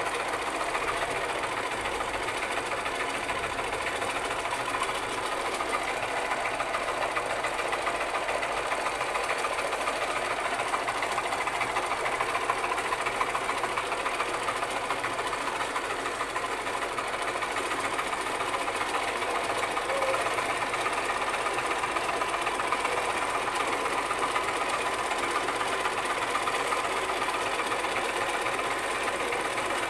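Sewing machine running steadily without stopping, an even mechanical rattle of stitching.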